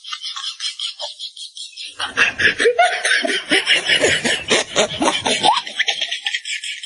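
Laughter in quick pulses, thin and high at first, swelling about two seconds in into fuller, lower laughing that fades back near the end.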